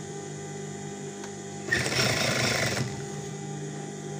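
Sewing machine stitching one short run of about a second, starting a little under halfway in, over a steady low hum.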